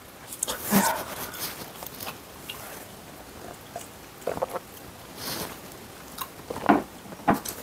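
Quiet close-miked eating and drinking sounds: chewing with small mouth clicks, and swallowing sips of beer from a glass mug.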